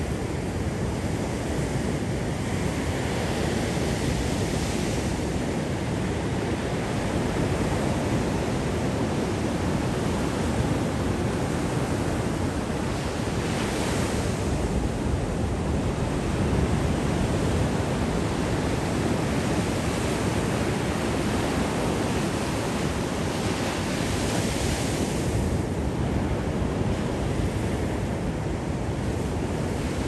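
Ocean surf breaking on a sandy beach: a steady rush with a swell of brighter hiss every ten seconds or so, with wind rumbling on the microphone.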